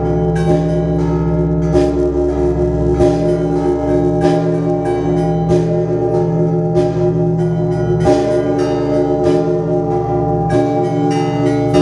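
Bells ringing as music: repeated struck notes at an uneven pace, each ringing on over a steady sustained drone.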